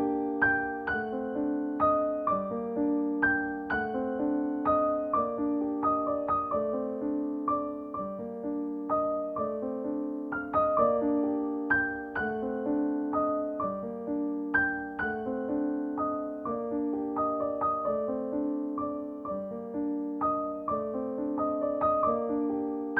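Background music: a gentle piano tune of repeating broken chords at an even pace.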